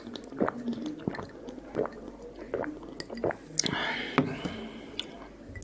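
Close-miked sips and gulps of a drink from a glass, a short wet swallow every half second or so. Then a longer, louder breathy sound and a sharp click around four seconds in.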